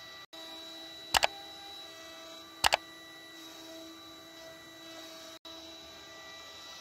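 CNC wood router spindles running with a steady whine while carving. This is broken twice by a loud double mouse click, about a second in and again near the three-second mark.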